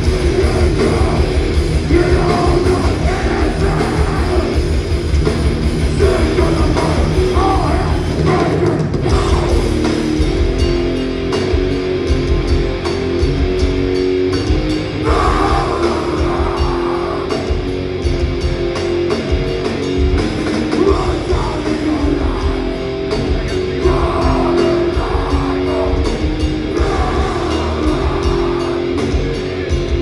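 A metallic hardcore band playing live, with heavily distorted electric guitars, drums and shouted vocals.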